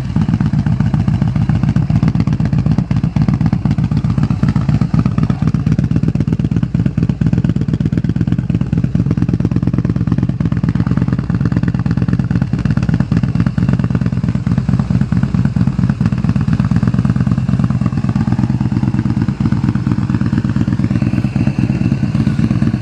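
Yamaha Bolt 950's air-cooled V-twin idling steadily through a custom slip-on exhaust, with a heavy, tight bass note.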